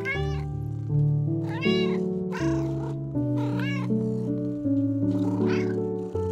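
Kitten meowing about five times, short calls that rise and fall in pitch, over background music of steady held notes.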